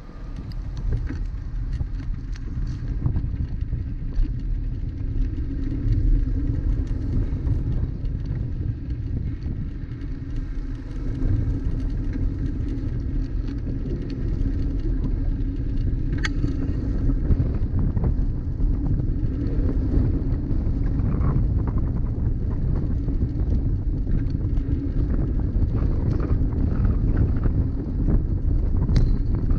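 Rumble and wind buffeting on a bicycle-mounted GoPro as the bike rides along a city street, with scattered knocks and rattles from the ride. The sound swells as the bike sets off.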